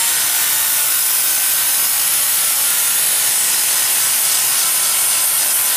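Handheld electric knife grinder running steadily with its abrasive pressed against a stainless steel plate, grinding the surface clean to bare metal before soldering.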